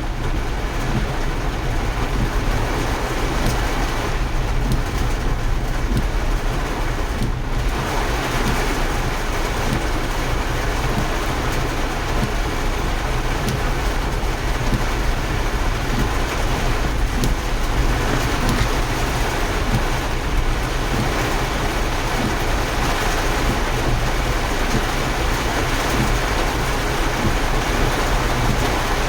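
A vehicle running steadily under a dense, constant rushing of rain or water, with a low rumble beneath it.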